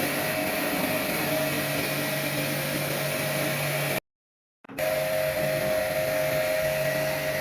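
A steady electric motor running with a constant whirring hum and hiss, broken by a brief dead cut about four seconds in.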